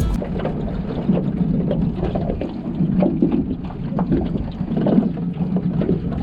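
A fishing boat under way: its motor hums steadily while water splashes irregularly against the hull, with wind on the microphone.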